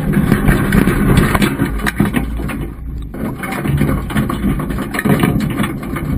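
Muffled underwater rumble with frequent knocks and clicks, picked up by a GoPro in its waterproof housing strapped inside a crab pot on the river bottom. It dips briefly about three seconds in.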